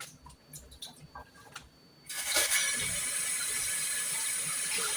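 A few light clicks, then a water tap turned on about two seconds in, water running steadily into a sink.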